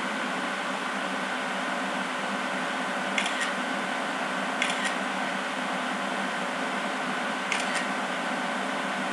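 Smartphone camera shutter sound, three short double clicks a few seconds apart, over a steady room hum.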